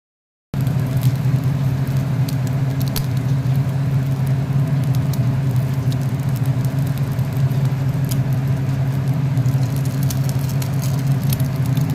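A steady low hum, with faint scattered crackles of oil spitting as an egg fries in a pan. It starts abruptly about half a second in.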